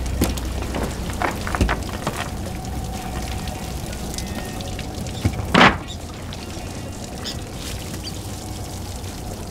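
Water and small baitfish splashing and pouring as a cast net full of bait is shaken out into a boat's bait well, with several short splashes and one louder hit a little past halfway.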